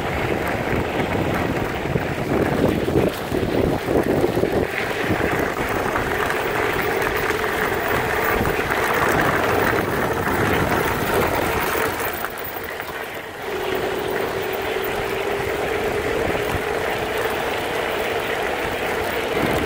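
Recumbent trikes rolling fast on a gravel trail: tyre crunch and wind rushing over the microphone, with a steady whine that rises slightly in pitch in the second half.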